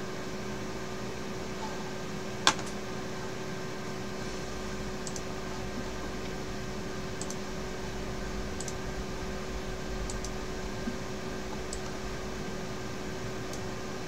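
Steady low hum with a faint steady tone, like a computer's fans, under a few faint clicks from working a computer's mouse and keyboard; one sharper click comes about two and a half seconds in.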